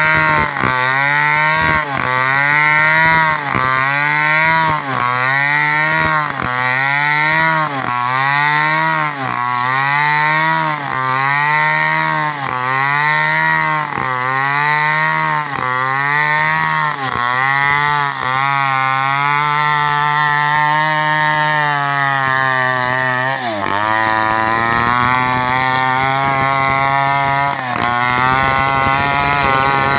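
Two-stroke chainsaw cutting at high revs through a coconut palm trunk. For most of the first 18 seconds its pitch sags and recovers about once a second as the chain bites into the wood and eases off. It then holds steady, bogs down sharply a little past the middle, and runs on at a lower pitch.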